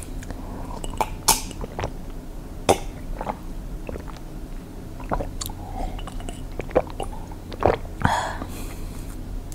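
A person chewing food close to a clip-on microphone, with scattered small clicks and crackles from the mouth.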